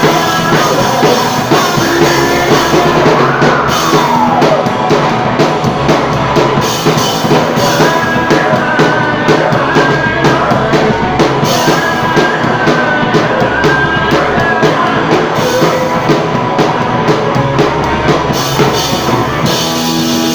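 Live rock band playing loud, with drum kit and guitars. A note slides down about three seconds in, and high held notes come in and out later.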